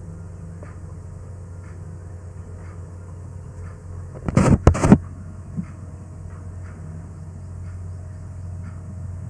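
Steady low hum with faint ticks about once a second, broken about four and a half seconds in by a short, loud burst of noise in two or three quick pulses.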